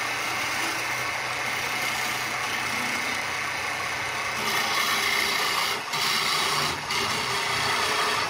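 Wood lathe running with a hand-held turning chisel cutting a spinning wooden baluster: a steady motor hum under the hiss of the cut. It gets louder about halfway through and drops out briefly twice near the end.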